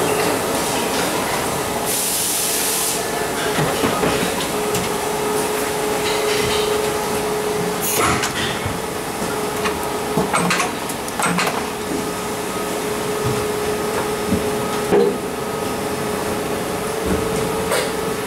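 Injection moulding machine cycling a four-cavity three-way stopcock handle mould: a steady machine hum with a constant whine, a short hiss about two seconds in, and scattered metallic clicks and knocks from the mould and press.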